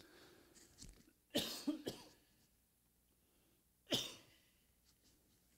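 A man coughing: two coughs about a second and a half in, and one more about four seconds in.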